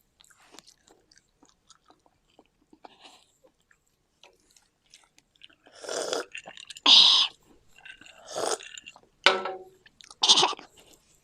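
Close-up chewing and mouth noises of people eating: faint clicks and smacks for the first half, then five loud bursts of munching about a second apart in the second half.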